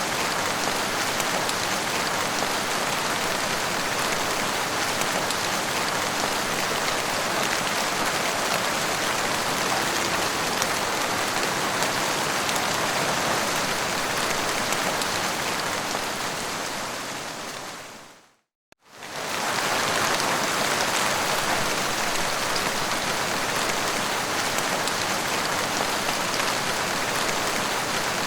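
Heavy rain falling steadily as a dense, even hiss. About 17 seconds in it fades to silence, then fades back in within a second or two.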